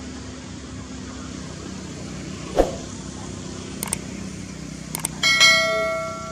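Subscribe-button sound effect: a few sharp mouse-like clicks, then a bright bell chime about five seconds in that rings down over about a second. Under it runs a steady low background rumble.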